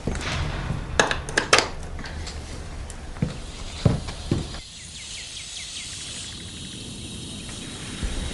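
Footsteps on a tiled floor and a few sharp clicks and knocks, among them a power cable's plug pushed into a wall socket, then a softer steady background from about halfway.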